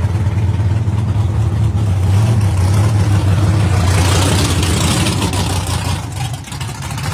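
Vintage drag-racing pickup truck's engine running loud with a deep, steady note. It turns harsher about four seconds in, then fades as the truck moves away.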